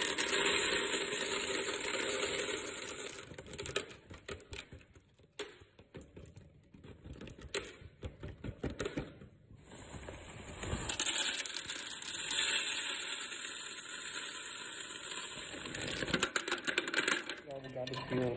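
Hard-coated candies pouring from a bag into the plastic canister of a candy vending machine: a rushing rattle of pieces, then scattered clicks of single pieces dropping in, then a second pour about ten seconds in.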